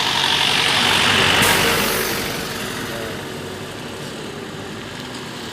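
A motor vehicle going by, its engine and road noise swelling to a peak about a second and a half in and then fading away over a steady low hum.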